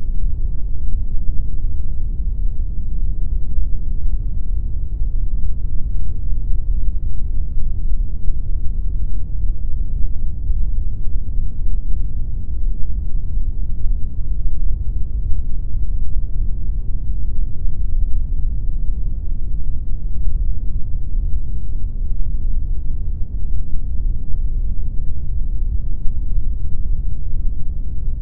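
Steady synthetic noise sold as pink noise: a dense, even rumble, heaviest in the low end with almost no highs, unchanging throughout.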